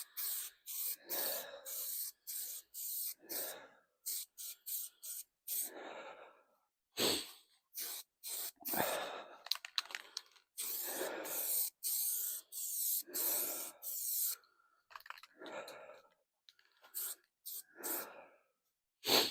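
Aerosol spray can of primer spraying in many short bursts with brief gaps between them, a few of the sprays lasting about a second.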